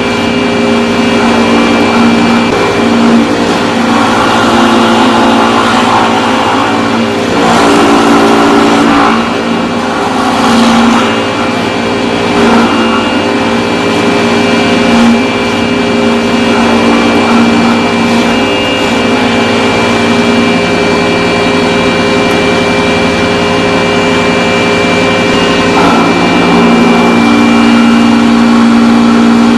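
Chainsaw running continuously as it carves timber. The engine note holds steady, with rough surges of cutting noise in the first half as the chain bites into the wood.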